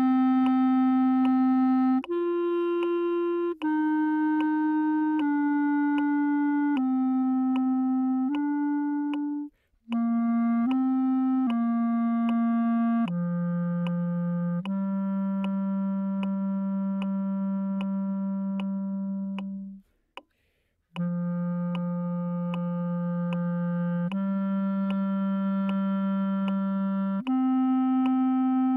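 Clarinet playing a slow, easy étude melody one note at a time, mostly long held notes in its low register. The line stops briefly twice, as if for breath.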